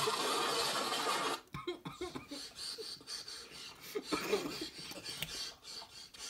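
Vine clip audio from a laptop speaker: a loud, even hiss-like noise that cuts off sharply about a second and a half in, then quieter clip sound with short low voice fragments, and stifled laughter and breathing near the end.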